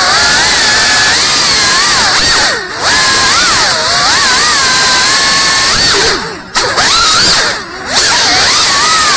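FPV quadcopter's brushless motors and propellers whining, the pitch swinging up and down as it flies. The whine briefly drops away three times, at about two and a half, six and a half and seven and a half seconds in.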